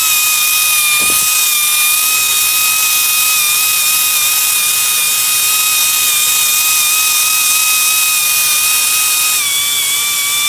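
Drill running steadily with a high-pitched whine, boring out a nail puncture in a tire to open the hole up for a patch plug. Its pitch dips slightly near the end.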